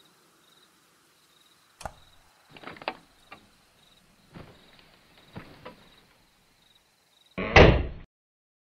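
A single sharp click, the bedside lamp being switched off, then a few scattered groups of soft knocks. Near the end comes a loud bang of about half a second, which cuts off suddenly.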